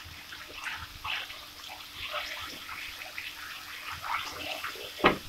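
Garlic paste and green chillies frying in hot oil in a wok: a soft, irregular crackling sizzle as a spoon stirs, with a faint steady hum underneath. A single knock near the end, the spoon against the pan.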